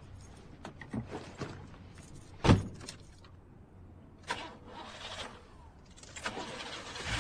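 Small clicks and handling sounds inside a car, a single loud thump about two and a half seconds in, then a car engine starting near the end and running on.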